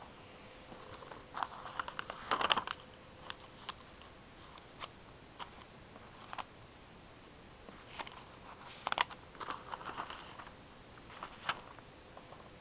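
Newspaper coupon inserts rustling and crackling as they are handled and flipped, in short bursts of crinkles and clicks that are busiest about two seconds in and again around nine seconds. A faint steady hum sits underneath.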